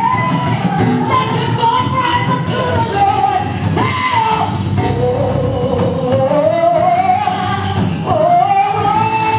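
Woman singing gospel live into a microphone over a band with drums, holding long notes that slide up and down in pitch.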